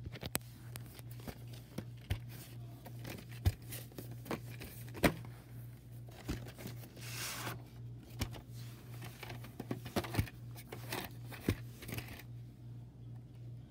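A VHS cassette being handled and slid out of its cardboard slip sleeve: cardboard rustling and scraping with scattered clicks and taps of the plastic cassette, over a steady low hum.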